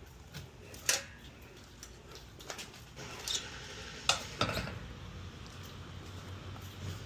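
A handful of sharp metallic clicks and clinks as small tools and parts are handled, the loudest about a second in and about four seconds in.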